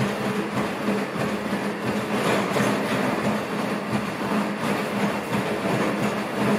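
ANYmal B quadruped robot's electric leg actuators running as it steps in place, giving a steady hum under continuous mechanical noise.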